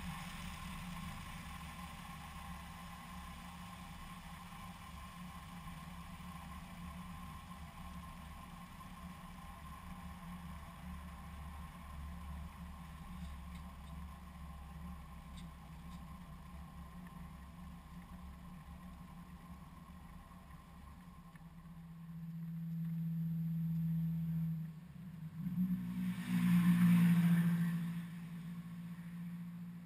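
Diesel engine of a JCB machine running steadily with a low hum. It grows louder for a few seconds about three-quarters of the way through, then surges again briefly with a rushing noise.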